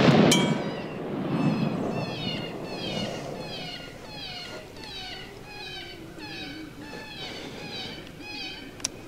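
The echo of a rifle shot dying away, then a coyote giving a steady run of high, falling yelps, about one and a half a second, as it runs off hit. A single sharp click near the end.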